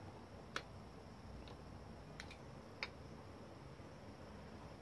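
Four faint, sharp clicks spread over the first three seconds as small hand tools are handled on a workbench, over quiet room tone.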